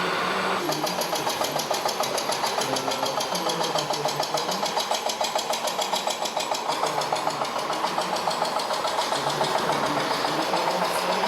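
Radio-controlled model vehicle running, an engine-like sound with a rapid, even pulsing of about five to six beats a second that starts just under a second in.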